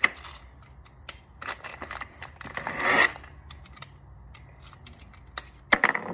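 Handling of bagged kit parts at a workbench: scattered clicks and knocks as parts are set down, with a longer crinkling rustle of plastic bags about three seconds in and a quick run of clicks near the end.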